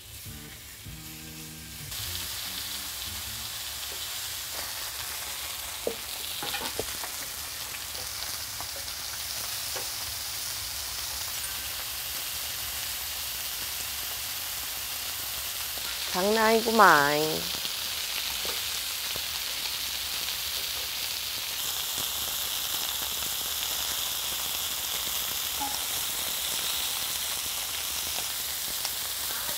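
Thick slices of pork belly sizzling on a large cast-iron cauldron-lid griddle, a steady frying hiss that swells about two seconds in as more meat goes on, with a few light clicks.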